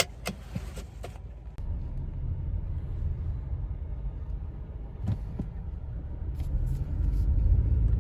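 A few clicks and knocks, then a car's steady low engine and road rumble heard inside the cabin, growing louder near the end as it picks up speed.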